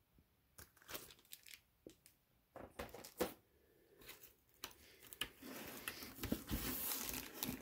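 Plastic bags around CGC graded comic slabs crinkling as the slabs are handled and lifted out of a box packed with crumpled paper. Scattered crackles at first, then denser, continuous crinkling in the last two seconds or so.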